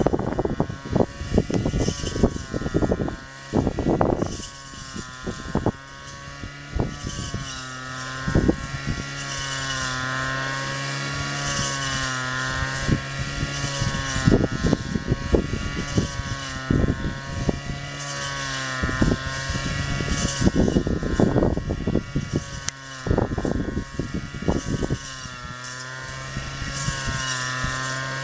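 Honda GX35 four-stroke brush cutter engine running at working speed, its pitch wavering slightly under load, with bursts of sharp clattering strikes.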